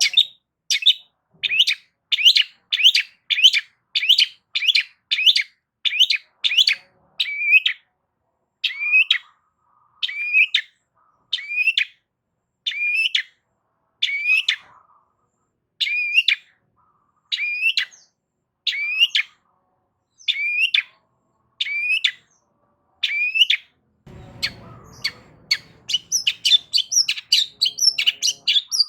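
Long-tailed shrike (cendet) calling: a long series of sharp, repeated downward-sweeping notes, quick at first, then spaced about one a second. About 24 seconds in, a faster, denser run of notes starts with a low rumble beneath it.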